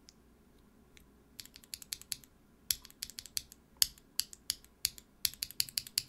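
Mechanical keyboard being typed on: Holy Panda tactile switches under MT3 keycaps on a brass-plated Tofu60, sharp key clacks. A couple of lone presses, then quick irregular runs of keystrokes from about a second and a half in.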